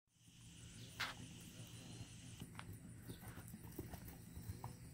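Horse's hooves thudding softly and irregularly on grass as it trots, with one sharp click about a second in.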